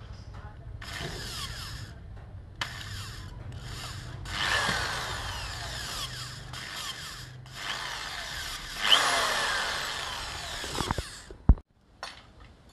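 Corded electric drill running in several bursts, a second or more each, boring into a metal part of a car side mirror's folding mechanism, its pitch sliding as the speed changes. A sharp click comes near the end.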